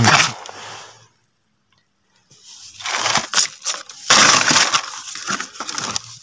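Dry leaves and undergrowth crunching and rustling close to the microphone as hands push through the plants and leaf litter of the forest floor. The sound stops for about a second near the start, then comes back louder and denser.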